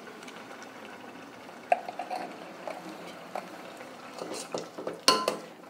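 Simmering curry being stirred in a stainless steel pot: soft liquid bubbling with a few light clicks, and a sharp metallic clink that rings briefly about five seconds in.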